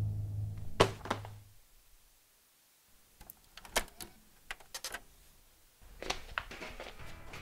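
A low drone fades out around two sharp clicks about a second in. After a near-silent pause comes a run of small plastic clicks and taps from a hand working the buttons and lid of a portable CD boombox. Near the end a faint steady hiss rises, with a few more clicks.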